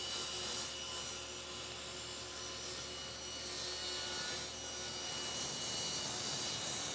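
Table saw running steadily with a few constant tones over a hiss while a crosscut sled is pushed through the blade. The blade trims the edges of the sled's trays to zero clearance.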